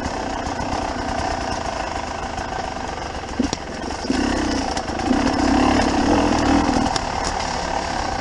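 Trail-bike engine lugging at low revs, with the throttle opened a little more for a few seconds past the middle. A few brief sharp clicks ride over it.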